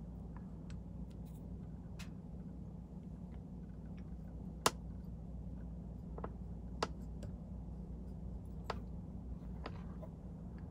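Small sharp clicks and ticks from hands handling hackle feathers and tools at a fly-tying vise, about half a dozen spread out, the sharpest about halfway through, over a steady low hum.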